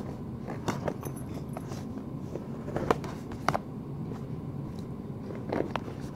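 Samoyed puppy in a plastic cone chewing and nosing at a chew toy: irregular sharp clicks and taps of teeth and cone on the toy, over a steady low hum.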